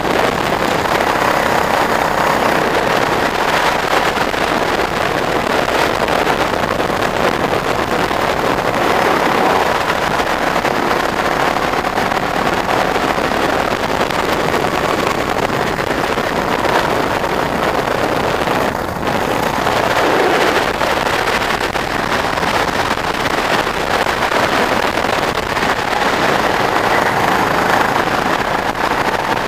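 Go-kart engine running at speed under the driver, heard from a camera mounted on the kart, mixed with wind noise on the microphone. The sound dips briefly about two-thirds of the way through.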